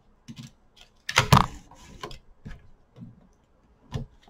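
Knocks and clicks from a Stamparatus stamping platform as the stamp and card are set in place and the hinged plate is brought down to stamp, with the loudest knock about a second in and another sharp one near the end.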